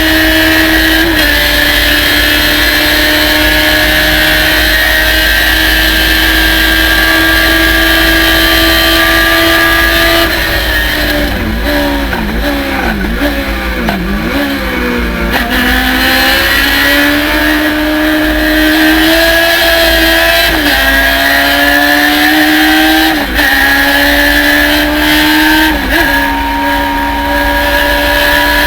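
Thunder Roadster race car engine held at high revs at full throttle, then about ten seconds in the revs fall with several quick blips as it brakes and downshifts for a corner. It then pulls back up through the gears, with three quick upshifts near the end.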